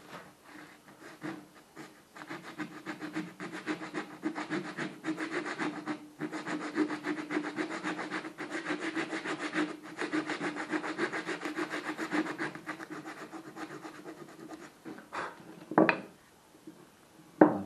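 Rasp scraping in quick, short, repeated strokes against the wooden body of a homemade hand plane, truing the bed where the blade seats. The strokes stop, and there is a single sharp knock about sixteen seconds in.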